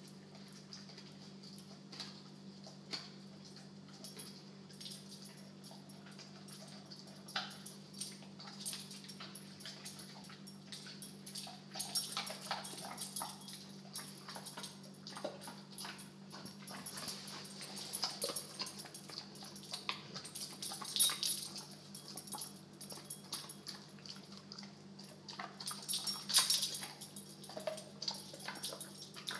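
American bulldog gnawing a twirly bully stick: irregular crunches and clicks of teeth on the chew, with louder spells of chewing now and then.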